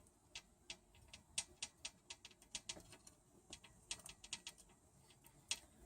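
Pet budgerigar making a quick, uneven run of small sharp clicks and taps, about twenty in all, as it grips and climbs the strings.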